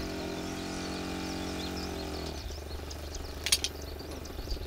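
A distant engine running with a steady hum that fades out about halfway through, over faint high chirping. A single sharp click comes near the end.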